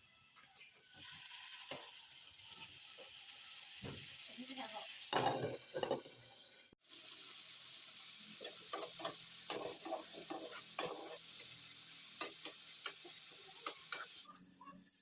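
Food sizzling in a hot pan while a spatula stirs and scrapes it, with many short clicks over a steady hiss. The sound cuts out for an instant about a third of the way in, then the sizzling and stirring resume.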